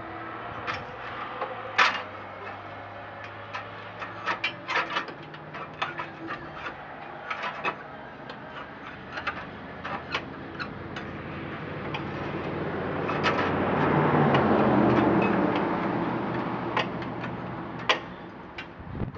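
Irregular metal clinks and ticks of hand tools and parts being worked on a riding lawn mower's engine. Partway through, a rushing noise swells and fades over a few seconds.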